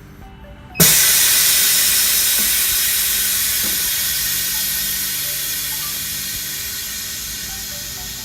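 A blast of compressed air, a loud steady hiss that starts suddenly about a second in and slowly fades, used to blow dust off the phone's glass and screen before they are bonded.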